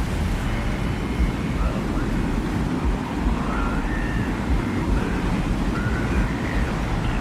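Steady low rumble of wind, with faint, brief high whistling tones drifting over it.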